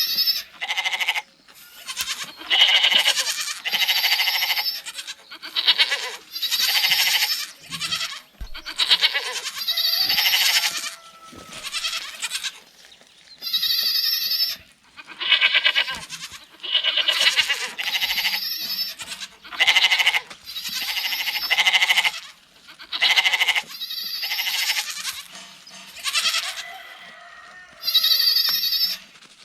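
Goats bleating: a long run of separate wavering bleats, one every second or two, each lasting about a second.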